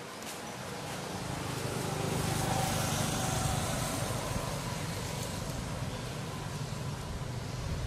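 A motor vehicle going past: a low engine drone with tyre hiss that swells over the first three seconds and then slowly fades.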